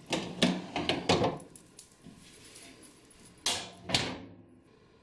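Craft supplies and storage being handled: a quick run of knocks and clatters, then two sharper knocks about three and a half and four seconds in.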